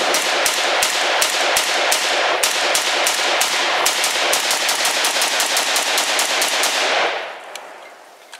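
CZ Bren 2S 5.56 NATO pistol fired in a fast semi-automatic string, several shots a second, stopping about seven seconds in.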